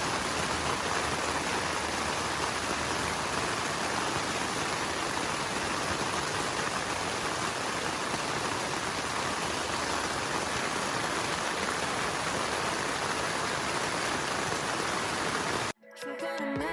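Steady, loud rushing of water, an even hiss with no change in level. It cuts off suddenly about a second before the end, and music starts.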